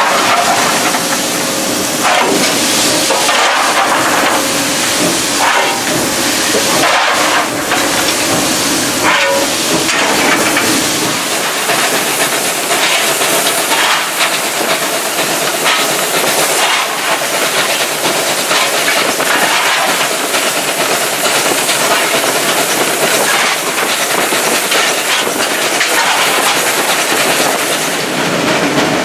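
South African Railways class 19D steam locomotive heard from the footplate while running: a loud steady hiss of steam over the clatter of the moving engine. Louder beats come every second or two during the first ten seconds.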